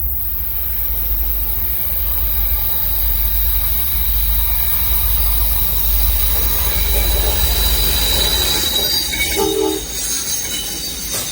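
Train rolling past with its steel wheels squealing: a steady, high-pitched squeal over a low rumble.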